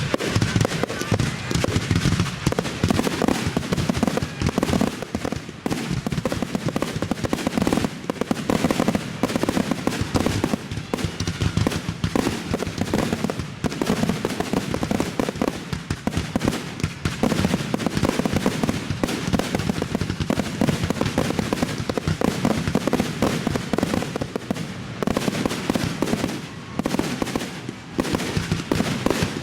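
Fireworks finale: a dense, continuous barrage of rapid overlapping bangs from bursting shells, with no let-up.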